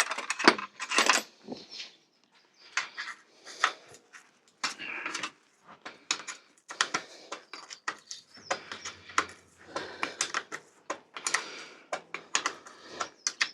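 Irregular metallic clinks, taps and knocks of hand tools and small bicycle parts being handled while the bike is taken apart.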